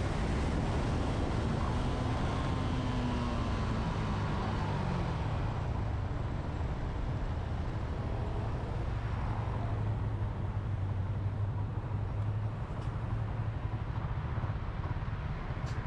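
Single-cylinder underbone motorcycle engine dropping in pitch as the bike slows over the first few seconds, then settling to a steady low idle. Wind and road noise on the microphone fade as it slows.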